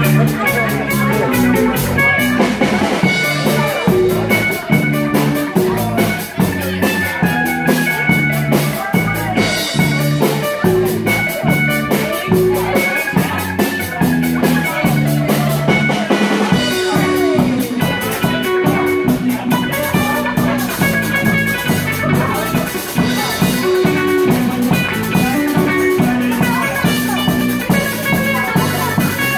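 A live instrumental rock band plays at a steady beat: a hollow-body electric guitar carries the melody over an electric bass and a drum kit.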